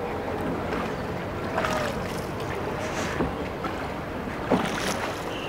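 Water splashing and lapping around a wooden shikara as it is paddled across the lake, with sharper splashes about every second and a half and wind on the microphone.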